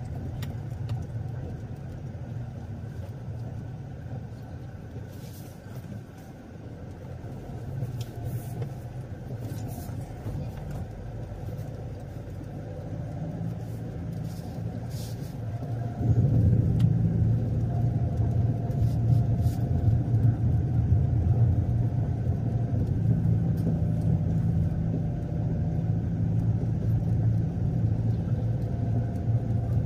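A car running and driving, a steady low engine and road rumble that gets clearly louder about halfway through.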